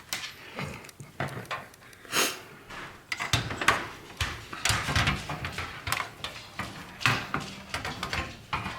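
Hands handling PC hardware during assembly: irregular clicks, taps and knocks of plastic and metal parts.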